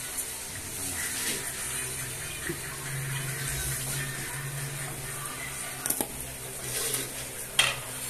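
Halved small green fruit being sprinkled with seasoning, then tossed by hand in a ceramic bowl, giving a few short knocks and rustles about six seconds in and again near the end, over a steady hiss with a low hum.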